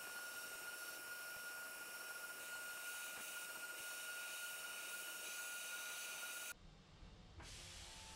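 CNC milling machine spindle running with a steady high whine and hiss as a small end mill works an aluminium plate. About six and a half seconds in, the sound breaks off abruptly to a quieter, lower hum.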